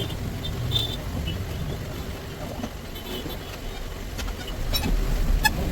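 Road traffic noise: an uneven low rumble of passing vehicles, with a sharp click about five seconds in.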